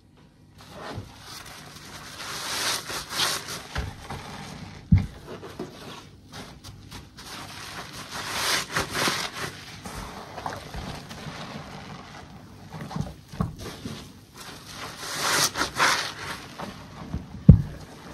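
Soapy bath sponges squeezed and kneaded by hand in a basin of sudsy water: wet squelching and fizzing foam that comes in several surges. A few short dull thumps, the loudest near the end.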